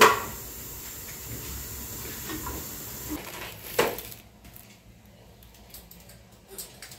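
A sharp metallic clank of cookware over a steady hiss from the stove where food is cooking. A second knock comes a little before four seconds in, then the hiss stops and a quieter room with a few faint clicks follows.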